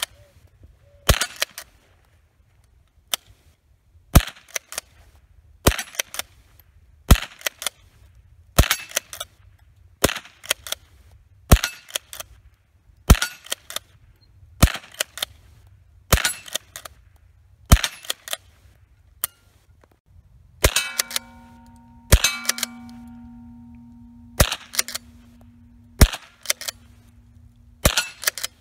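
Remington 572 Fieldmaster pump-action .22 rifle firing standard-velocity .22 ammunition in steady slow fire, a sharp crack about every one and a half seconds. After each shot come the smaller clacks of the pump being worked. In the last third a ringing tone lingers on after the shots.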